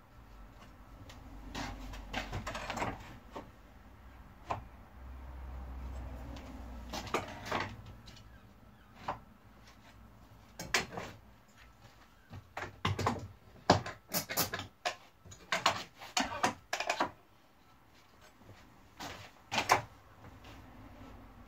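Handling noise from a plywood cutting guide being positioned and clamped onto a plywood sheet: soft shuffling, then a run of sharp wooden knocks and clicks in the second half, with another pair of knocks near the end.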